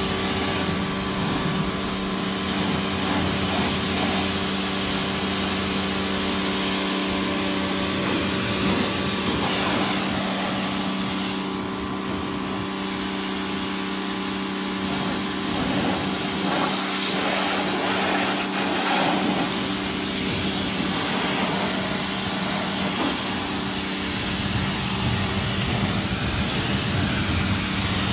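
Pressure washer running steadily with a constant hum, its water jet hissing as the wand sprays the side-by-side.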